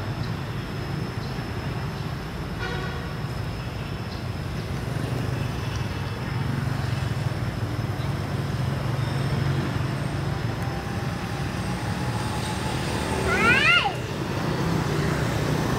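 A steady low rumble, with one short, high squeal about three-quarters of the way through that sweeps up in pitch and drops away, typical of a baby long-tailed macaque crying out.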